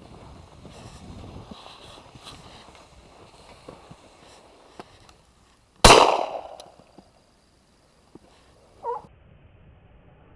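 A single hunting gunshot about six seconds in, a sharp crack that rings out and dies away over about a second, after rustling movement and wind on the microphone. About three seconds after the shot comes a brief pitched sound.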